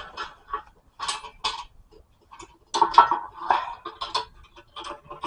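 Metal tools and strut parts clinking and clattering in a string of irregular short knocks, as a front strut assembly is worked on by hand.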